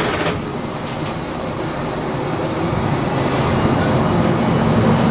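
Diesel railcar on the Akechi Railway running on the line, its engine rumble and wheel-on-rail noise heard from inside the car, growing gradually louder.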